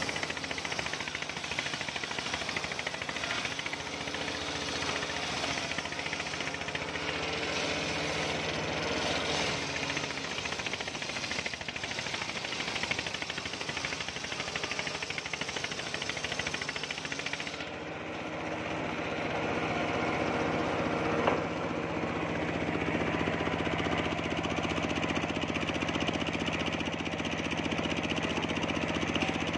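Homemade motor-driven circular saw bench running, its blade ripping a coconut-wood beam into boards with a harsh, steady cutting noise over the drone of the drive. About two-thirds of the way through the cutting noise eases while the motor keeps running, and a single knock follows a few seconds later.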